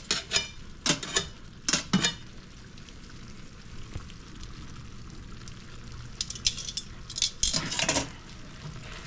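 Angel hair pasta and garlic butter sauce sizzling in a pan, with a metal utensil clinking and scraping against the pan in a flurry during the first two seconds and again from about six to eight seconds in.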